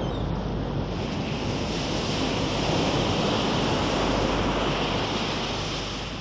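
Steady rushing noise of wind and sea water, growing a little stronger after the first second and easing slightly near the end.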